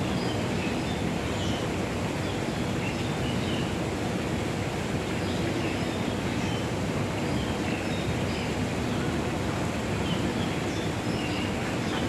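Steady outdoor background noise with faint, brief calls from a flock of flamingos scattered through it.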